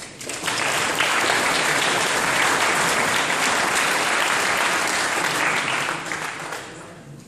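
Large audience applauding: the clapping swells within the first second, holds steady, then dies away near the end.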